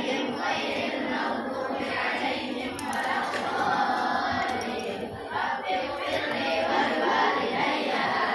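A group of voices chanting together in unison, steady and unbroken.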